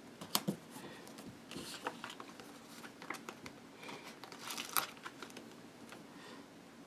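Vinyl planner stickers being handled, peeled from their backing sheet and pressed onto a planner page: crinkly rustling of the sticker sheet with scattered sharp ticks, the loudest just after the start and a little before five seconds in.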